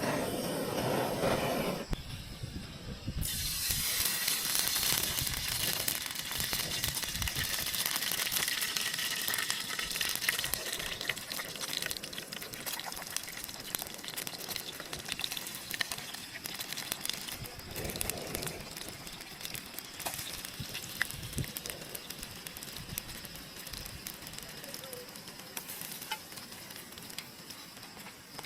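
Food frying in a pan, a steady crackling sizzle that starts about three seconds in and slowly dies down.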